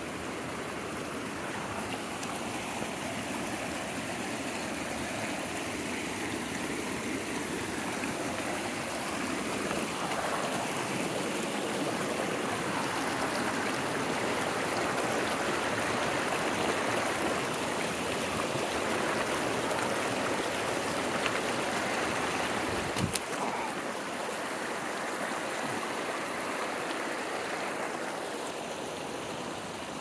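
Shallow mountain stream running over rocks and gravel, a steady rushing that swells through the middle and eases off near the end. One brief knock sounds about two-thirds of the way through.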